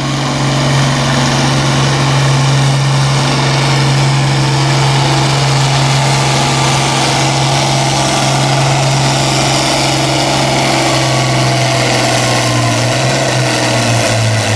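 International Harvester farm tractor's diesel engine running hard under full load while pulling a weight-transfer sled. It holds a steady engine note, which sags slightly near the end as the pull winds down.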